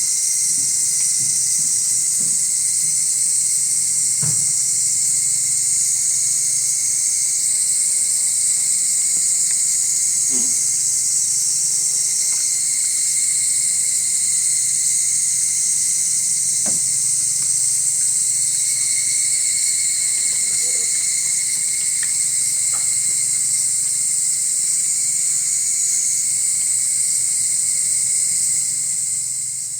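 Steady high-pitched chorus of summer insects, with a few faint low knocks about 4, 10 and 17 seconds in; it fades out at the end.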